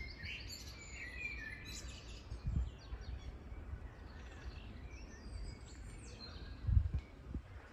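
Birds chirping in many short, high calls, thickest in the first couple of seconds and thinning out afterwards. Two low thumps come about two and a half seconds in and near the end.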